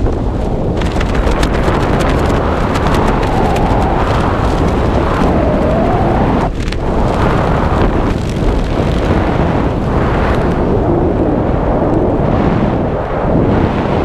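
Freefall wind rushing hard over the camera's microphone during a skydive: a loud, steady buffeting rush.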